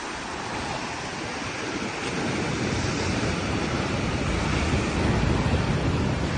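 Ocean surf breaking and washing over a rock ledge: a steady roar that grows louder and heavier about two seconds in as a wave surges over the rocks.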